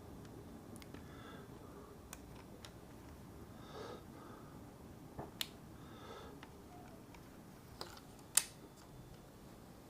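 Small sharp clicks and taps of plastic kit parts and a hand tool being handled while a shock absorber is screwed onto an RC buggy, the loudest click about eight seconds in, over quiet room tone.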